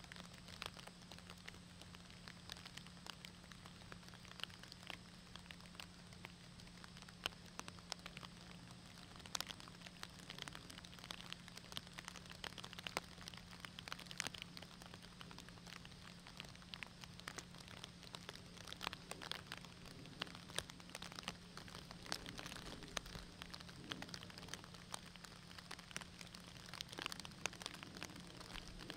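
Rain pattering, with a steady hiss and many scattered drips and ticks throughout. A steady low hum runs underneath.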